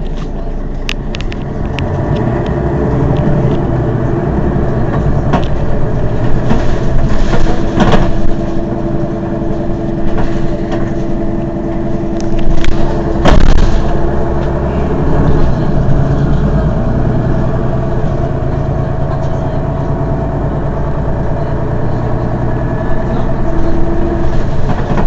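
Mercedes-Benz Citaro city bus's diesel engine idling steadily while the bus stands still, with a couple of sharp knocks about a third and halfway through.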